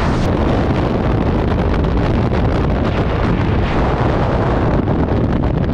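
Loud, steady rush of freefall wind blasting across a handheld action camera's microphone during a skydive.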